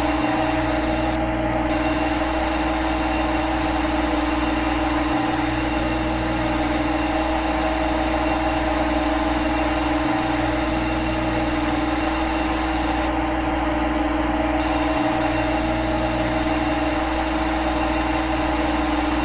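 Steady machine hum with two held tones over a bass drone, the running sound of a simulated CNC machine tool. The bass drops out briefly about every five seconds, like a repeating loop.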